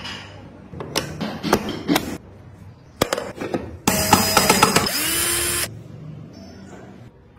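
A few sharp clicks and knocks, then a small power tool runs loudly with a whine for under two seconds and winds down in pitch as it stops.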